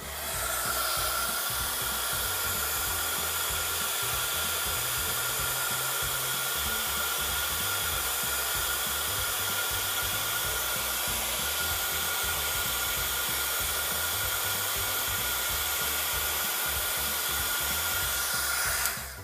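Small craft heat gun (embossing gun) running steadily: its fan blows with a rush of air and a steady high whine. It is switched on at the start and cuts off just before the end.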